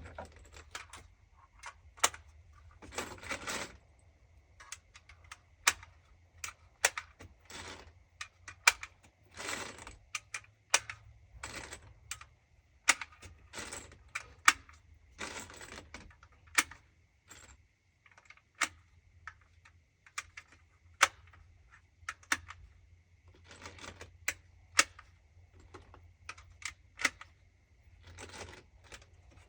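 Scattered sharp clicks and a few brief rustles, irregularly spaced: handling noise.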